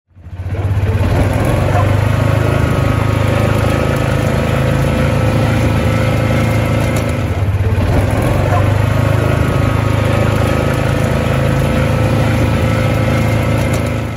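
A motor running steadily with a low, even drone.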